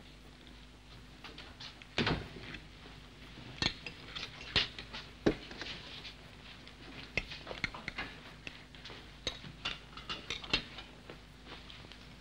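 Crockery and cutlery clinking and knocking as a table is laid: a teapot, cups and plates set down one after another in short irregular strikes over a faint steady hum.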